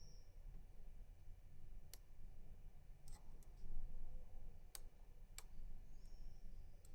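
A rotor pick being worked inside a six-pin FAC lock: sparse, faint metallic clicks, a few seconds apart, with a brief high squeak near the start and again near the end.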